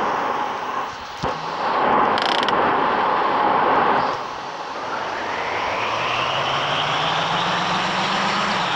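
Steady vehicle noise. About halfway through, a whine rises in pitch over a couple of seconds and then holds steady.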